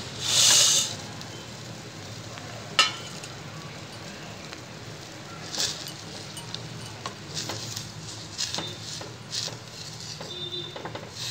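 Instant noodles bubbling in a steel pot of boiling water, with a loud hiss lasting about half a second near the start. A wooden spoon then stirs them, knocking sharply on the pot once near three seconds and clicking and scraping lightly against it through the second half.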